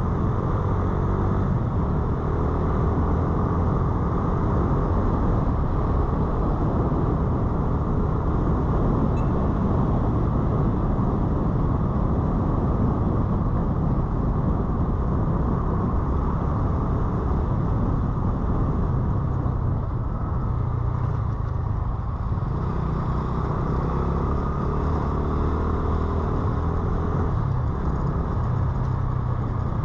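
Motorcycle engine running steadily under way, with road and traffic noise. The engine note drops off around twenty seconds in, then picks up again.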